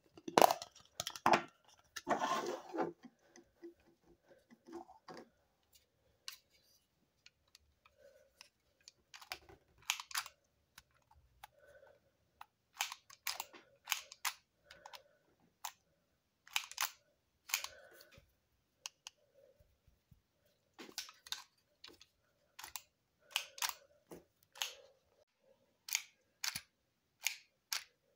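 Hands handling hard plastic: a plastic toy capsule opened with a short cluster of cracks and rattles about two seconds in, then scattered sharp clicks and taps as a small plastic penguin figure is turned and handled, coming more often in the last third.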